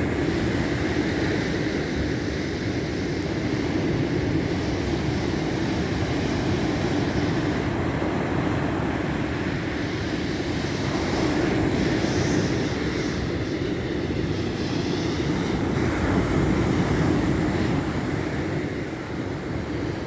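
Rough Black Sea surf breaking and washing onto a sand-and-pebble beach, with wind buffeting the microphone: a steady rushing noise that swells and eases.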